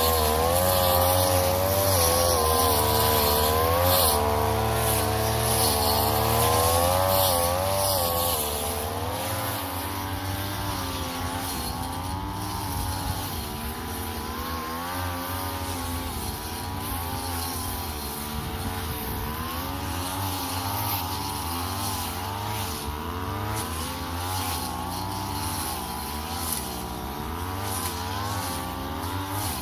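Brush cutter's small engine running, its pitch rising and falling again and again as the throttle is worked. It is louder for roughly the first eight seconds, then runs on a little quieter.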